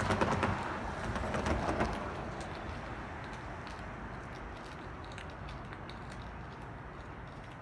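A car passing by, its engine and tyre noise swelling in the first two seconds, then fading away.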